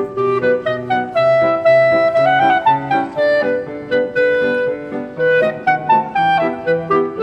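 Instrumental background music: a held melody line over a steady, regularly repeating accompaniment.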